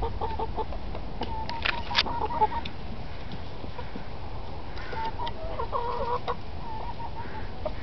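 Chickens clucking, a run of short calls in the first couple of seconds and another bunch around five to six seconds in, with a few sharp clicks around the second mark and a steady low rumble underneath.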